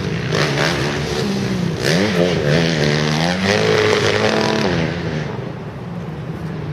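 Motocross bike engine revving as the rider goes over jumps, its pitch rising and falling with the throttle. It then holds a higher steady note and grows quieter near the end as the bike rides away.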